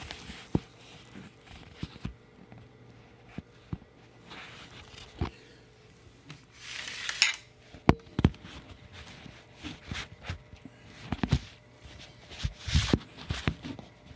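Scattered metallic clinks and knocks of a small wrench being fitted against the bleeder valve on an oil furnace's fuel pump. There is a brief rustle about seven seconds in, and more clustered knocks near the end.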